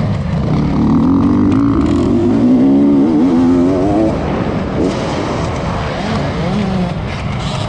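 Beta 300RR two-stroke dirt bike engine revving hard under acceleration, its pitch climbing and wavering for about four seconds. It then falls away as the bike crests a jump and picks up again near the end.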